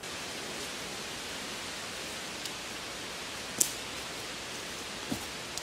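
Steady, even background hiss with a few faint ticks, a sharper high tick in the middle and a soft low knock near the end.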